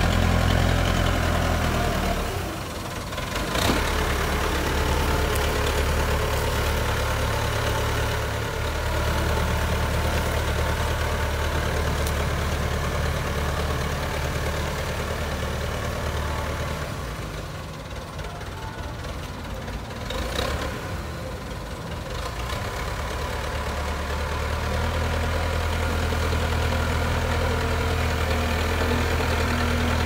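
JCB 3CX backhoe loader's diesel engine working as the front bucket pushes soil, its steady low note easing off twice, about two seconds in and for several seconds past the middle, then pulling again. A couple of short knocks come from the machine as the note drops.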